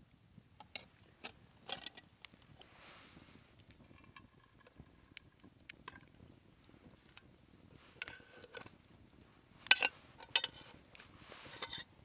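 Metal camp cookware clinking and knocking as boiled potato dumplings are spooned out of a cooking pot into a mess tin, with a few short metallic rings; the loudest knocks come about ten seconds in.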